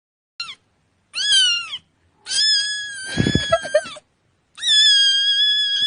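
Cat meowing four times: a short high meow, then a rising-and-falling one, then two long drawn-out meows. Some low thumping noise sounds under the third meow.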